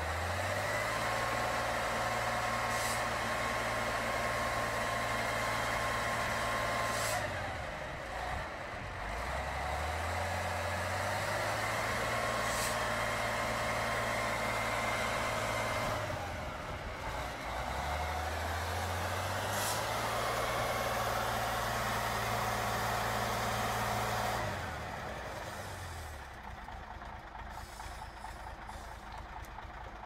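Engine of a heavily loaded six-wheel logging truck revved hard three times, each time climbing in pitch, held high for about five to seven seconds, then dropping back, as the truck strains through deep mud. Near the end it settles to a quieter, lower run.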